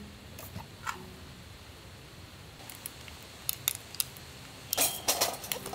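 A few light clicks and taps of small objects being handled, then a brief rustle near the end.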